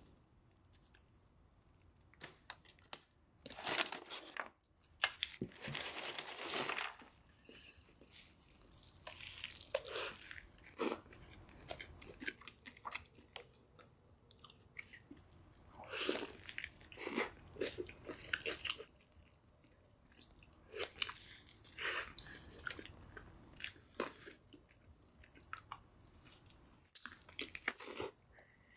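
A person biting into and chewing crunchy food: bursts of crisp crunches come in irregular clusters, with quieter chewing in between.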